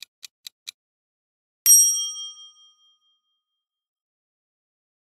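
Countdown timer sound effect: a few quick clock-like ticks, about four a second, that stop, then about a second later a single bright ding that rings out and fades over about a second, marking the reveal of the result.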